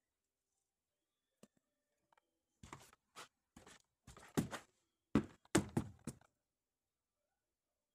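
A run of separate knocks and thuds over about three and a half seconds.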